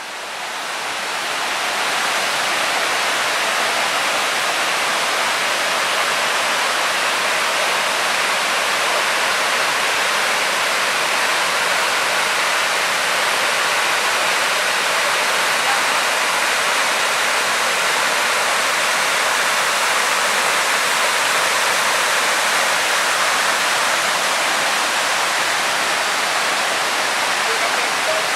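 Waterfall: a steady, dense rush of falling water, fading in over the first couple of seconds.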